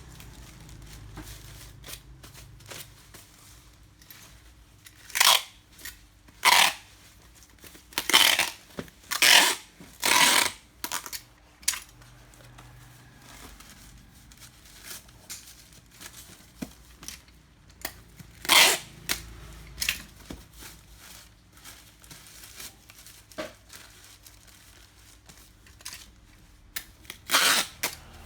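Parcel packaging being torn and handled: a run of short, loud ripping sounds about five to ten seconds in, another a little past halfway and one near the end, with quieter crinkling and handling between them.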